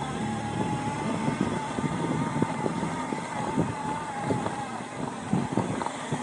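Mountain bike rolling over rough single track: a steady buzzing tone that wavers slightly in pitch, with frequent short knocks and rattles from the bike over bumps, and wind on the microphone.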